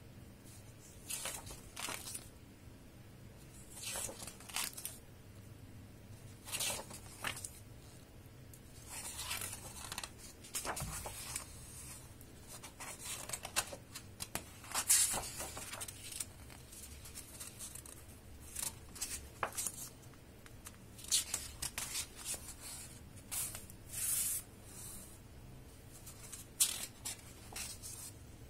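Pages of a large hardcover book being turned one after another: repeated short paper rustles and swishes, a second or two apart, with softer sliding of fingers over the pages in between.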